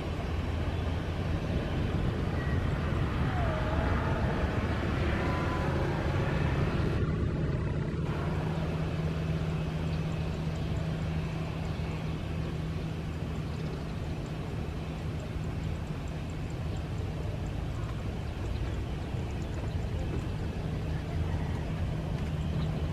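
Distant jet airliner engines running as aircraft taxi, a steady low rumble with a constant hum and a faint whine above it.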